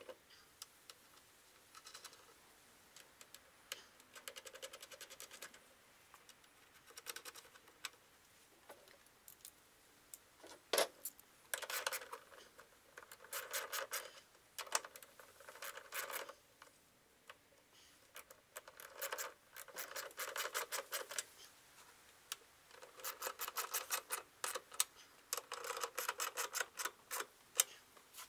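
Socket ratchet clicking in repeated short bursts of rapid, even ticks, each burst a second or two long with pauses between, as nuts are turned on the pool heater.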